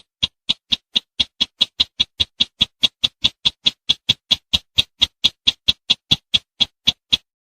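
Sintar semak bird calling: a run of short, sharp, evenly spaced notes at about four or five a second that stops abruptly near the end. Single notes come singly and well apart before the run.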